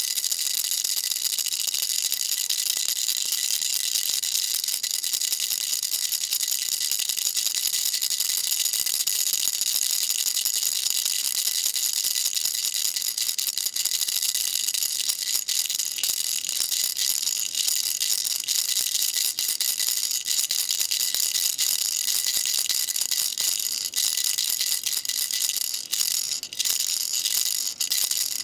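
Baby rattle shaken without a break: a dense, steady, high-pitched rattling, with a couple of brief lulls near the end.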